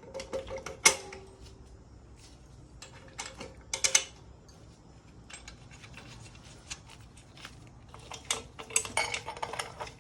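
Metal hand tools and bike parts clinking and clanking in scattered short knocks, with the two sharpest clanks about one second and four seconds in and a quicker run of clicks near the end. This is hand-tool work on a motorcycle wheel's brake-rotor and sprocket bolts.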